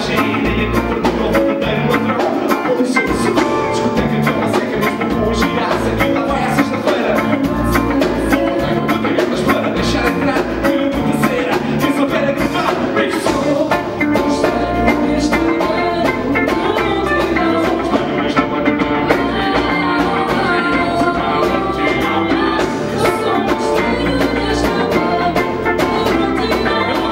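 Live band playing a pop-rock song on drum kit, electric bass, electric guitar and keyboard, with a female lead singer.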